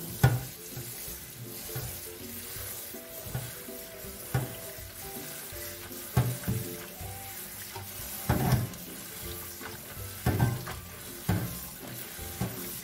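Tap water running steadily into a steel bowl of cassava leaves in a stainless steel sink, with hands swishing and rubbing the wet leaves to rinse them. A few dull knocks stand out now and then, and light background music plays underneath.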